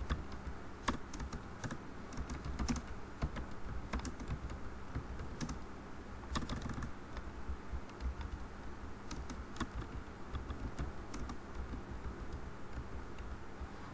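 Computer keyboard being typed on, irregular key clicks at an uneven pace, over a steady low hum.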